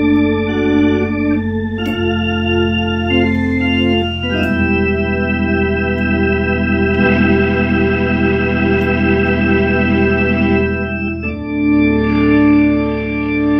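Hammond A100 organ with C2 manuals playing sustained chords on both manuals over a strong low bass, the chord changing three times. The held notes carry a pulsing warble.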